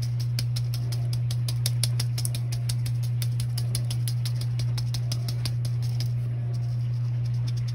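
A handheld mesh sieve being shaken and tapped to dust powdered sugar, giving a quick run of light ticks, about six a second, that stop about six seconds in and start again near the end. A steady low hum runs underneath.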